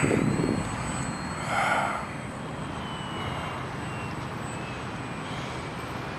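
Slick aerobatic airplane's engine droning faintly as it flies, its pitch slowly falling. Wind buffets the microphone in the first half-second.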